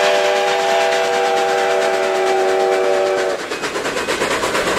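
Steam locomotive's chime whistle blowing a long, steady chord that cuts off about three seconds in, leaving the train's running clatter with a quick, regular beat.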